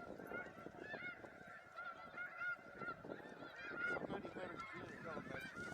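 Snow geese calling: many short, high honks overlapping continuously, the sound of a calling flock.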